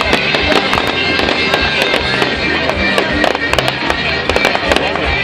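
Fireworks going off in rapid, irregular cracks and bangs over loud music from a sound system.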